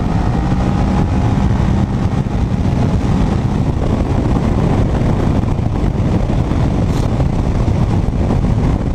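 A 2012 Kawasaki ER-6f's parallel-twin engine running steadily at cruising speed, heard from the rider's helmet with a constant rush of wind noise, inside a road tunnel.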